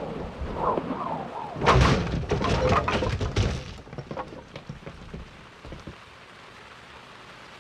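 Animated-film sound effects: a loud crash of heavy thuds and breaking about two seconds in, followed by smaller scattered knocks that die away over a few seconds, leaving a faint steady hiss.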